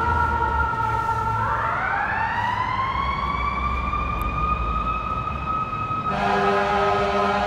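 Fire engine siren moving away: a steady siren tone, then from about a second and a half in a mechanical siren winding up in a slow rising wail that levels off. About six seconds in a long air horn blast starts and holds.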